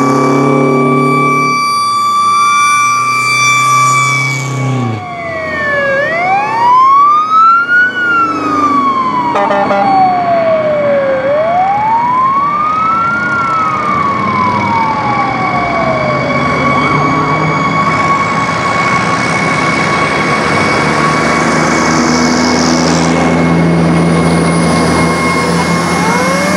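Sirens of antique fire trucks passing in procession. A truck's horn sounds as a ladder truck goes by, its pitch dropping and stopping about five seconds in. Then a mechanical siren winds up and slowly winds down twice, over other sirens holding steady high tones, with another siren starting to wind up near the end.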